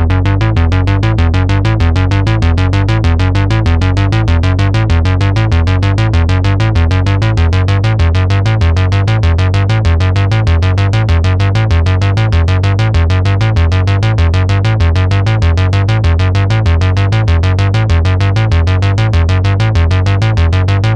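Behringer Model 15 analog modular synthesizer playing a fast, evenly repeating sequence of short notes over a pulsing bass line.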